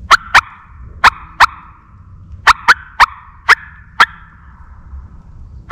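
Turkey call notes imitating a hen, blown on a mouth call: about nine sharp, loud, short calls in an irregular run of pairs and singles.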